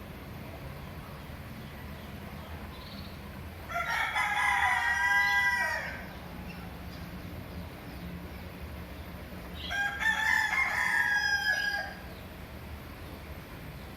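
Two long calls from a bird, each lasting about two seconds, the first about four seconds in and the second about ten seconds in, over a steady low hum.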